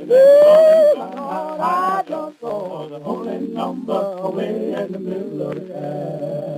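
Male gospel vocal group singing: a lead voice swoops up high and loud in the first second, the other voices follow, and near the end they settle into a steady held chord.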